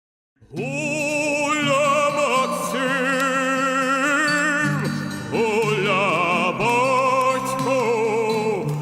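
Outro music starts about half a second in, after a brief silence: a melody in long, wavering vibrato notes over a steady accompaniment.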